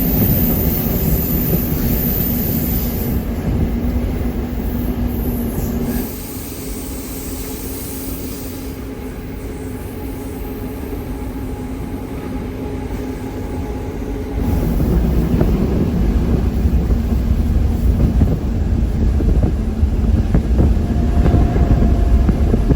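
Train running on the rails, heard from on board, a steady rumbling noise. It drops suddenly about six seconds in and comes back up just as suddenly about fourteen seconds in.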